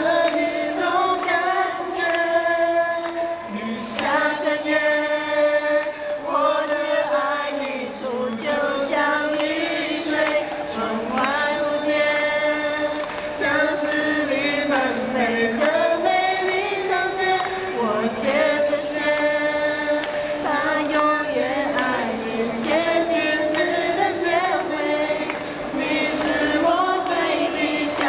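A man singing a song unaccompanied into a handheld microphone through the PA, in long held phrases that glide between notes.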